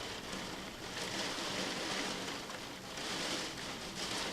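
Heavy rain driven by strong wind against a window, a steady hiss and patter that swells slightly with the gusts.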